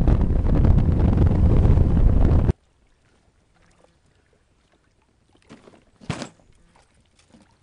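Heavy wind buffeting the microphone on a moving boat, cutting off abruptly about two and a half seconds in. Then near silence, broken by a brief faint sound about six seconds in.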